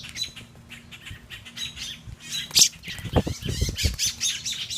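Rapid, overlapping squawks and chirps from a hand-held baby songbird and the adult birds around it, blackbirds among them: alarm calls of adults defending the young. A few low bumps come about three seconds in.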